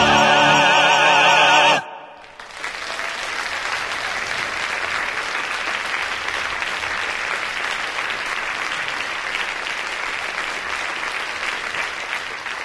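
Singers with an orchestra hold the final chord of the closing number, which cuts off sharply about two seconds in. Audience applause then rises and continues steadily.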